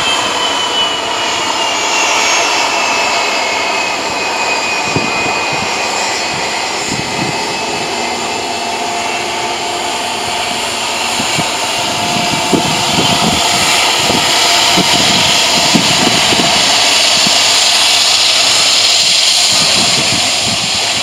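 BAe 146-200's four Lycoming ALF 502 turbofans running at low power with a high whine. The whine drops in pitch over the first few seconds, and the engine noise grows louder from about two-thirds of the way through.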